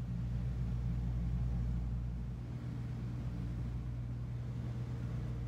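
Steady low hum of room tone, made of several constant low tones with no distinct events, like a building's ventilation or electrical hum.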